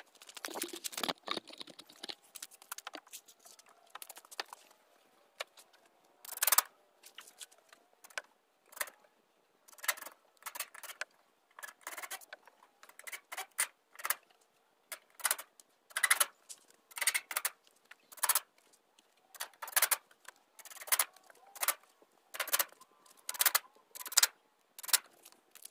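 Irregular short, sharp clinks and rattles, often in quick clusters, from hands working on a pen of wire hardware cloth on a wooden frame.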